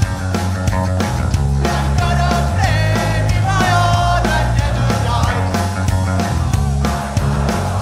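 Live punk rock band playing loud: driving drums, heavy bass and electric guitar.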